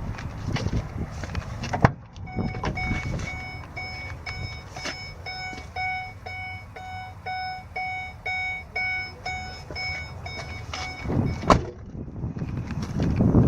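Electronic warning beeper sounding a rapid, even series of short beeps, about three a second, for roughly nine seconds, then stopping. A sharp knock comes just before the beeping starts and another just after it stops, with handling and movement noise around them.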